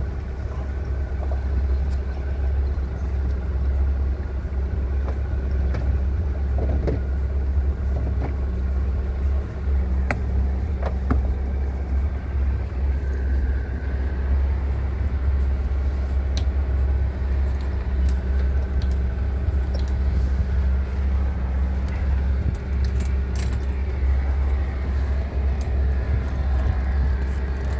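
A sailboat's auxiliary engine running steadily at low speed for docking, with a few light clicks and clinks of fittings over it.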